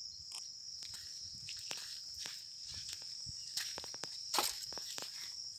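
Footsteps crunching over rubble-strewn ground as a person walks, sounding as irregular sharp clicks with a louder one about four and a half seconds in. A steady high-pitched insect chirring runs underneath.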